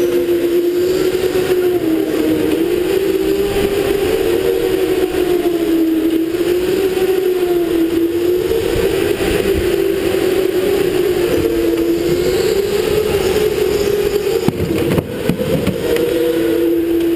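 Electric go-kart motor whining while driving, its pitch rising and falling with speed through the corners, over a steady hiss. A brief patch of knocks about fifteen seconds in.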